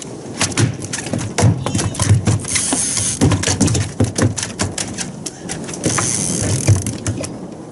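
Rapid, irregular clicks and knocks of fishing tackle being handled at a small boat's rail, with two brief stretches of high hiss about two and a half and six seconds in.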